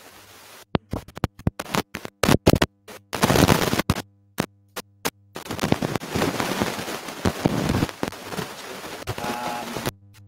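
Garbled, choppy audio from a glitching video-call connection: a voice breaks up into stuttering fragments of noise with abrupt dropouts to dead silence, too mangled to make out words.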